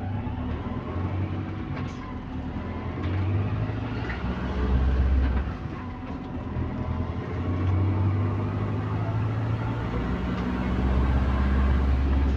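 Bus engine running under way with an exhaust leak, its low drone swelling and easing about three times as the revs rise and fall.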